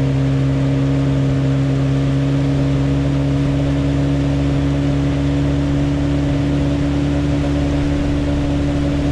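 Boat's outboard motor running at a steady speed while the boat moves, a constant hum with no change in pitch.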